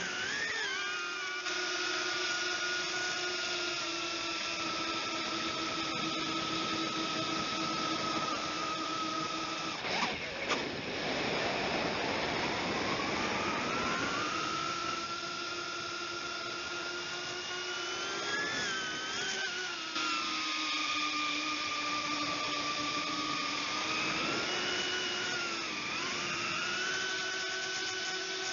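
Brushless motors and propellers of a 135 mm FPV quadcopter whining with throttle. The pitch holds steady, breaks into a brief rush of noise about ten seconds in, climbs back up over the next few seconds, then swings up and down a few times near the end.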